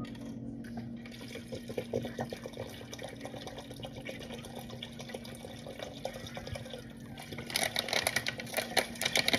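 Water poured from a plastic water bottle into a cooking pot, splashing loudly for the last couple of seconds. Before the pour there are light clicks and taps from the bottle and pot being handled, over a steady low hum.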